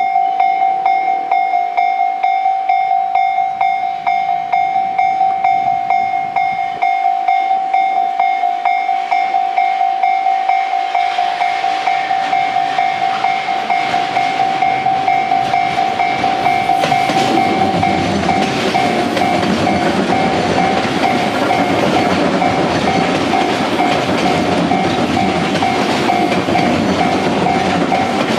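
Japanese level-crossing warning bell ringing, a high ding repeated about twice a second, while a Tobu 10050-series electric train approaches from about ten seconds in and passes the crossing through the second half with a loud rumble and clacking wheels over the rail joints, the bell still ringing over it.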